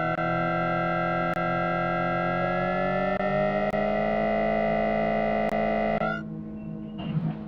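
Mitsubishi VVVF traction inverter on a CSR electric train whining in several tones that rise in pitch as the train accelerates, then cutting off abruptly about six seconds in when power is shut off; a lower steady hum carries on, with a few faint clicks.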